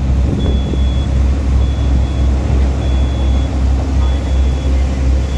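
Heavy construction machinery engine running steadily with a deep, slightly pulsing drone, while a high-pitched warning beep sounds about every 1.2 seconds, each beep a little over half a second long.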